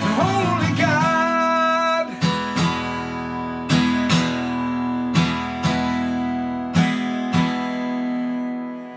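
Acoustic guitar playing the song's closing chords: pairs of strums about every one and a half seconds over a ringing chord, which fades out near the end.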